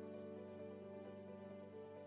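Quiet background music with soft, held instrumental notes.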